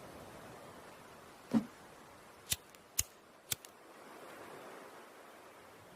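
A faint steady hiss with a dull knock, then three sharp clicks about half a second apart.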